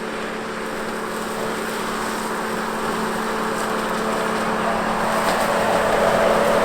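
A motor vehicle's engine running steadily, growing gradually louder toward the end.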